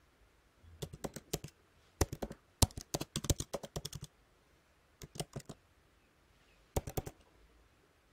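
Computer keyboard typing in four short bursts of key clicks, the longest run in the middle, as a search term is typed out.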